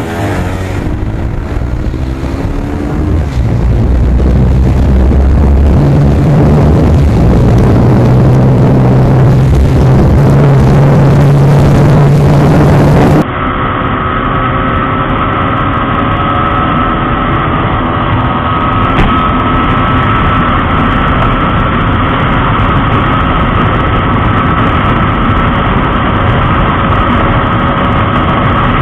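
Motorcycle engine and wind rush heard from an onboard camera: a Bajaj Pulsar 220's single-cylinder engine accelerating hard, getting louder a few seconds in. About 13 seconds in it cuts to a TVS Apache RTR 160 4V's single-cylinder engine running steadily at high revs at speed, with wind noise.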